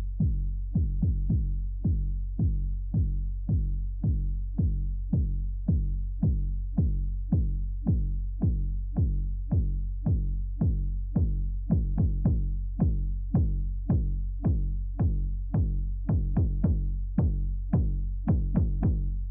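Electronic music: a steady drum-machine beat of about two hits a second over a sustained low bass drone.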